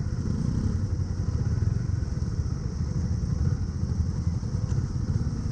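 Motorcycle engine running steadily at low revs, a dense low rumble made of rapid firing pulses with no revving up or down.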